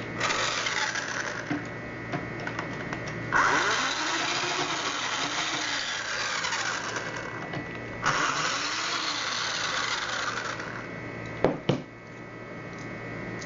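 Electric screwdriver running in two long spells, backing out the screws of a knob lockset, followed by a sharp click near the end.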